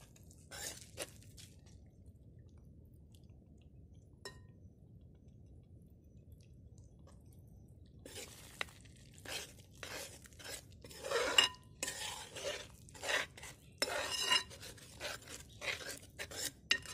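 A metal spoon stirring a thick jackfruit-and-jaggery mixture in a large aluminium pot. After a couple of light taps and several fairly quiet seconds, from about halfway there is a quick run of scrapes and clinks of the spoon against the pot.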